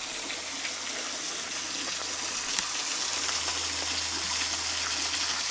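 Steady rush of running water from a small creek and trickle beside the trail, growing a little louder a few seconds in.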